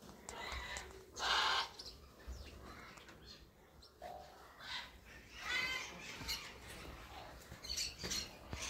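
Parrots calling: a few separate short calls, the loudest about a second in and another about five and a half seconds in.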